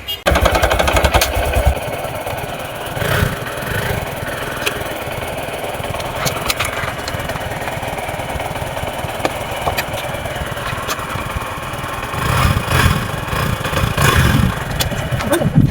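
Motorcycle engine running on the move, with uneven low rumbling near the start and again near the end.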